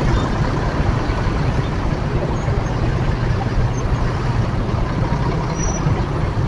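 Steady low rumble of slow, congested road traffic: motorcycle engines, a bus and a truck running close by at crawling speed.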